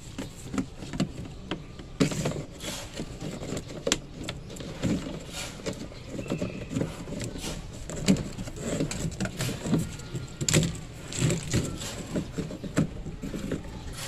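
Irregular rustling, taps and knocks, with no steady machine sound: handling noise as a phone is moved around under a washing machine.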